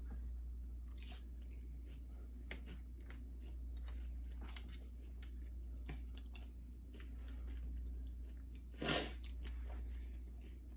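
Close-up chewing and crunching of Doritos nachos, with many small crisp crunches. About nine seconds in comes one short, louder breathy burst.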